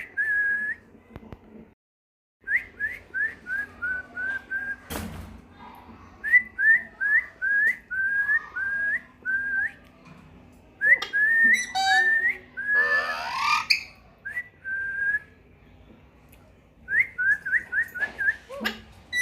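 Pet green parrot whistling runs of short, clear notes, each sliding up and then briefly held, in bursts of several at a time, with a rougher rising call about two-thirds of the way through.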